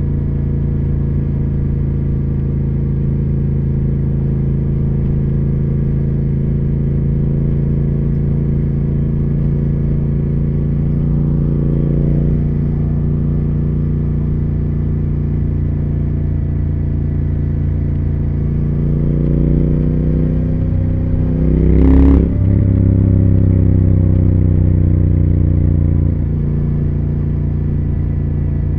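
Triumph Speed Twin 1200's parallel-twin engine and exhaust running steadily under way. The engine builds about two-thirds of the way through, a sharp click or knock sounds, it pulls harder for a few seconds, then eases back near the end.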